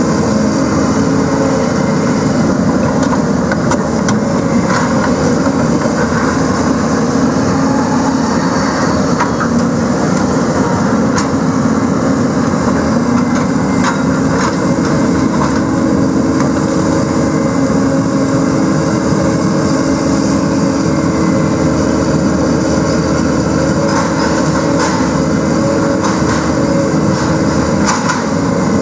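John Deere 160C LC tracked excavator running steadily, its diesel engine and hydraulics working as it grapples and swings logs, with a few light knocks of wood.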